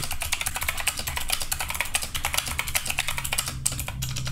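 Fast, continuous typing on an Epomaker compact mechanical keyboard with clicky blue switches: a dense stream of sharp key clicks.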